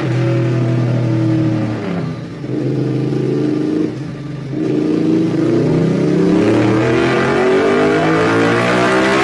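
Sport motorcycle engine running at a steady high note, easing off about two seconds in, then accelerating with a long, steady rise in pitch over the last four seconds.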